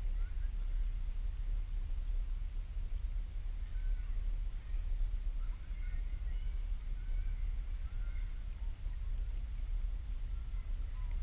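Faint bird chirps and short whistles scattered through, over a steady low rumble.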